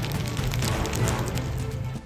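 Background music mixed with a dense, noisy sound from the footage.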